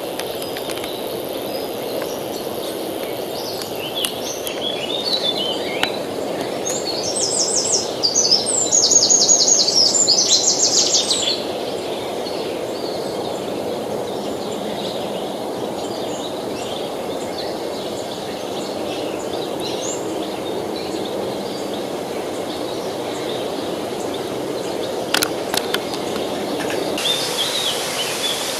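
A river flowing steadily beneath songbirds singing. About seven seconds in, a burst of fast trilled bird song lasts a few seconds and is the loudest sound. A few sharp clicks come near the end.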